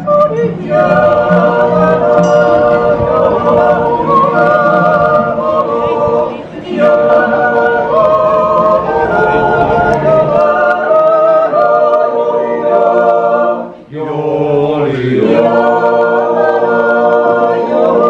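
A choir singing unaccompanied, holding sustained chords in long phrases, with two short breaths between phrases.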